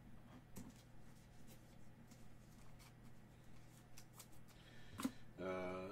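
Faint light clicks and rustles of trading cards being handled and slid over one another. A man's voice makes a brief sound near the end.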